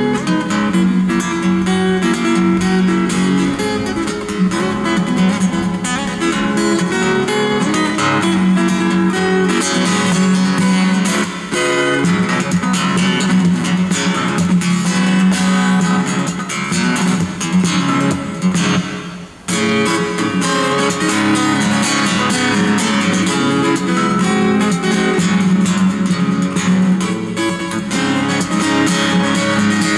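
Solo steel-string acoustic guitar played fingerstyle, with melody and bass notes mixed with sharp percussive taps on the guitar body. The playing breaks off for a moment about two-thirds of the way through, then picks up again.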